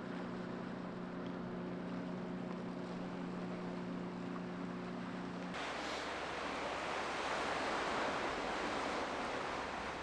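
A steady low hum over a faint rush, which changes suddenly about five and a half seconds in to the louder, even rush of waves washing on a shore, with wind on the microphone.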